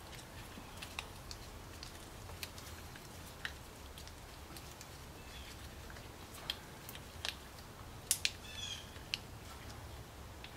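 Light handling noises from the compression-tester air adapter hose being fitted into the spark plug hole: scattered faint clicks and taps, with a louder cluster of clicks and a brief squeak about eight seconds in, over a low steady hum.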